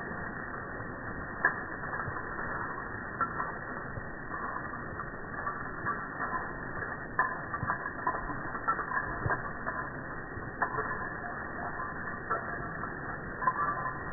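Slowed-down, deep-pitched hiss of a garden hose spraying water onto a lawn, dotted with irregular clicks and snaps.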